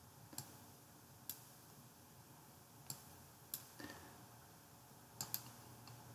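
Faint, scattered clicks of a computer mouse, about seven of them, some in quick pairs, against near silence.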